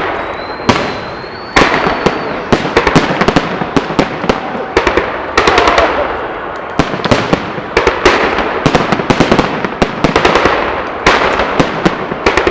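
Fireworks display: rapid crackling volleys of many sharp pops, coming in waves every couple of seconds over a continuous crackle.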